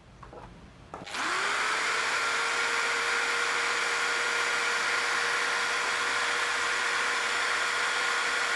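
A Nagawa HDN6013 600 W corded impact drill starts about a second in, spins up quickly and runs with a steady whine at its no-load top speed of about 3000 rpm.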